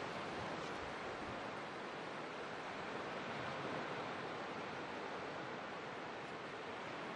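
Sea surf washing in: a steady, even hiss.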